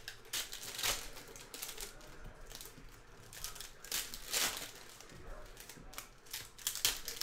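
Foil trading-card pack wrappers crinkling and being torn open by hand, in a series of short crackling bursts, loudest about four seconds in and again near the end.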